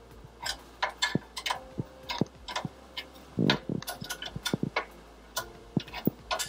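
Steel spanner working the nuts on a threaded rod as they are nipped up against a steel frame: a run of irregular metallic clicks and taps, about two or three a second, some with a short ring.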